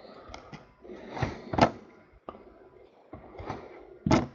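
Trading cards being handled, with a few brief rustles and scrapes of cards sliding and tapping against each other and the table. The loudest come about a second and a half in and again near the end.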